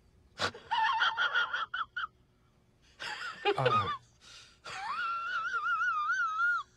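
High-pitched whimpering voice: short squeaky cries, a falling squeal, then a long wavering wail for about two seconds near the end.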